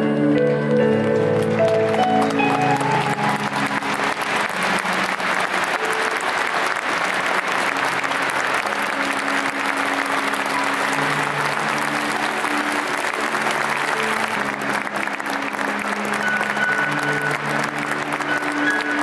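Large stadium crowd applauding steadily over slow music; the applause builds over the first couple of seconds and holds.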